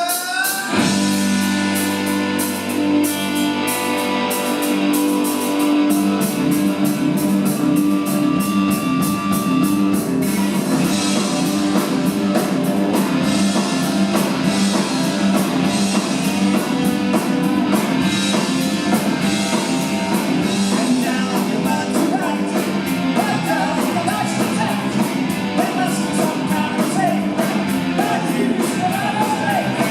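Live rock band playing: the song opens on held guitar notes, and the full drum kit and band come in fast about six seconds in.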